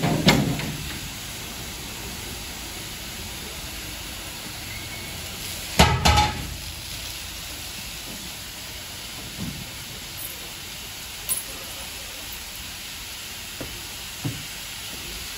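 Small tank steam locomotive standing with steam hissing steadily from it. Over the hiss come metal knocks as the crew work on the engine: one sharp knock at the start, a loud ringing double clang about six seconds in, and a few lighter knocks later.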